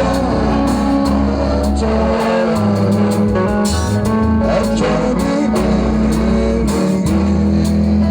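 Band music: guitar over a bass line that moves every second or so, with drum kit keeping a steady beat.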